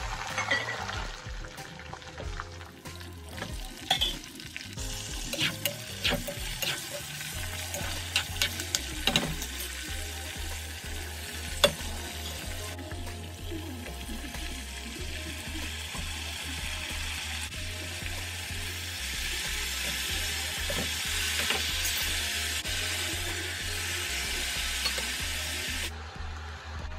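Vegetables sizzling in hot oil in a kadai: green chillies, small onions, tomatoes and mint leaves frying, with a steady hiss. A few sharp knocks and clicks sound in the first half.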